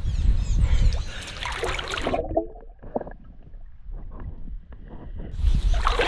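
River water sloshing and splashing around a wading swimmer. About two seconds in, the sound turns muffled and dull for about three seconds as the microphone goes under the water, with faint knocks and clicks. Splashing returns abruptly when it surfaces.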